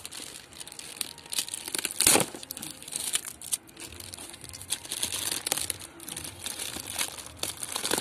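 Plastic courier mailer bag crinkling and crackling as it is torn open and pulled off a cardboard box, in a string of irregular sharp crackles with a loud one about two seconds in.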